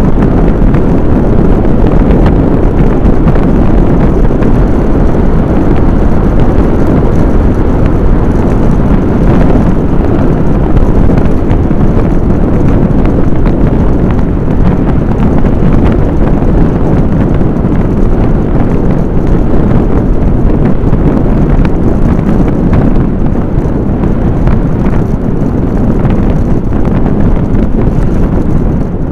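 Steady, heavy wind noise buffeting the microphone of a camera moving along a road, with vehicle and road noise underneath.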